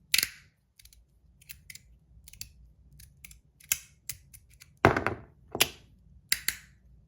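Titanium Modusworks Meathammer Rapt haptic slider fidget being slid back and forth, giving irregular sharp clicks and snaps, a loud one near the start and a cluster of louder snaps around five to six and a half seconds in.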